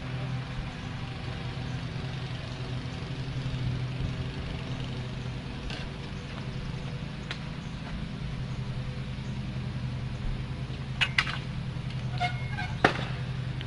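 Small gasoline lawnmower engine running steadily, a constant low hum. A few sharp knocks come near the end, about four within two seconds.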